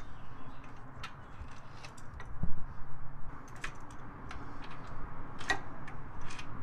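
Scattered light metallic clicks and ticks of an 11 mm socket and extension unscrewing a BMW N52 intake manifold bolt by hand, with one louder knock about two and a half seconds in.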